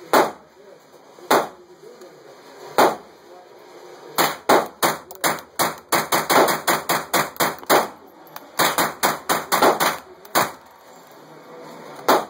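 GSG-522 SD .22 LR semi-automatic rifle firing in an indoor range: a few single shots, then two rapid strings of about five shots a second, the first about four seconds in and the second about nine seconds in, then two more single shots.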